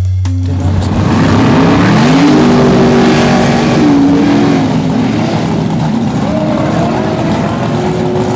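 Drag racer doing a smoky burnout: the engine revs hard over a roar of spinning tyre. Its pitch climbs about two seconds in, holds high with some dips, and rises again near the end.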